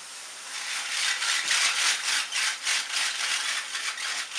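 Hydrogel water beads (orbeez) frying in a hot pan, hissing and sizzling. About half a second in the hiss grows louder and pulses about five times a second.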